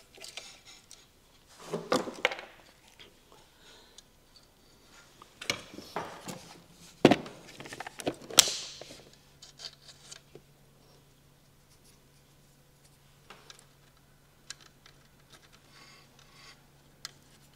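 Screwdriver and metal motor parts of an old circular saw clicking, scraping and knocking as a carbon brush is worked out of its holder, with a few sharp knocks about 7 and 8½ seconds in. A faint steady low hum starts just after the last loud knock.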